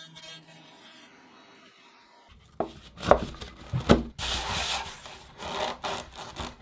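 A recessed SUP handle being pressed and rubbed into its freshly routed pocket in the foam board, scraping against the foam in a few hard strokes and longer rubs starting a little over two seconds in. Before that only a faint fading hum.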